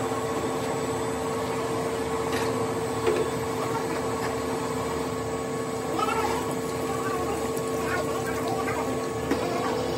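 Plastic pipe extrusion machine running with a steady hum, and a few short knocks.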